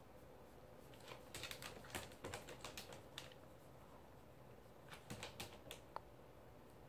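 A toy poodle's claws clicking and tapping on a plastic mesh pet toilet tray as it shifts its feet. The clicks are faint and irregular and come in two clusters, about a second in and again about five seconds in.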